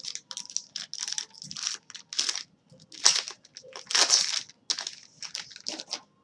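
Foil wrapper of a 2013 Topps baseball card pack being torn open and crinkled as the cards are pulled out, in a run of sharp crackles, loudest about three and four seconds in.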